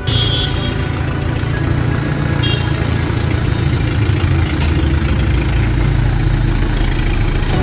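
Tractor diesel engine running steadily at low revs, a deep even rumble.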